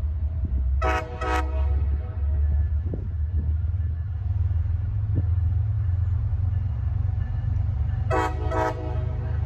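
Train horn sounding two short blasts about a second in, then two more short blasts near the end, each a multi-note chord, over a steady low rumble.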